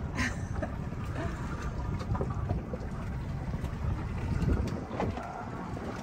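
Wind buffeting the microphone on a small boat at sea, a steady low rumble, with a few light knocks and a short sharp sound just after the start.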